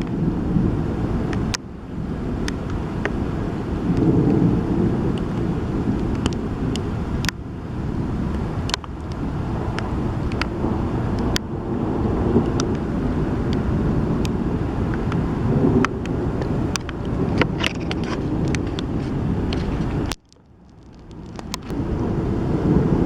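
Wind buffeting the microphone in a low, uneven rumble, with scattered sharp ticks throughout. The sound cuts out suddenly near the end and swells back in.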